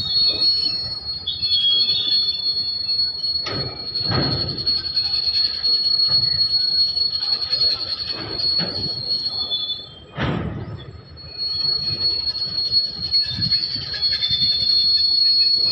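Goods train of covered freight wagons rolling past, with a steady high-pitched wheel squeal and a few heavy knocks as wheels cross rail joints; the sound dips briefly about ten seconds in.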